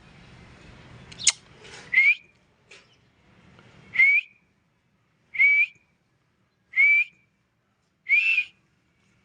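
A parrot whistling: five short notes, each rising in pitch, about every one and a half seconds. A sharp click sounds about a second in.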